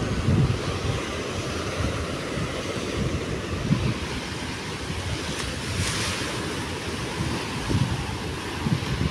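Sea surf breaking and washing against a rock embankment, a steady rushing noise with a louder surge of spray about six seconds in, and gusts of wind buffeting the microphone.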